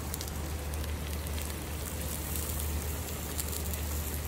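Food sizzling and crackling in foil boats on a hot flattop griddle, with many fine irregular pops over a steady low hum.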